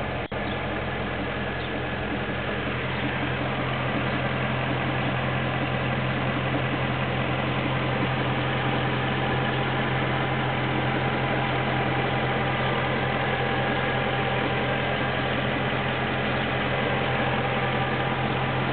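2008 BMW M3's 4.0-litre V8 running steadily at idle, with a knocking noise that the owner doubts is normal though the dealer says it is.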